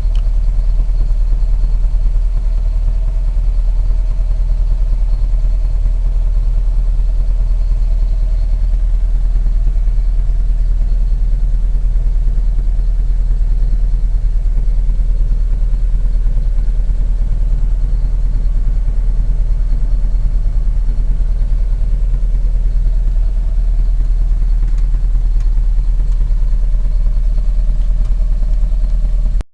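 1983 VW 1500's engine running steadily at idle, with an even low hum and no revving; the owner likens its sound to a Singer sewing machine.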